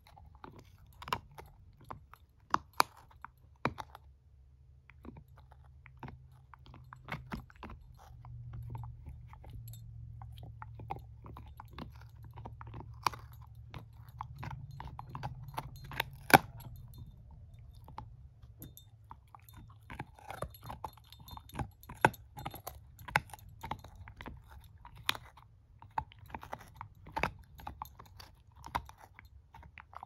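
Shepherd-mix puppy gnawing a chew stick: irregular crunches and sharp clicks of teeth on the stick, with one louder crack about sixteen seconds in.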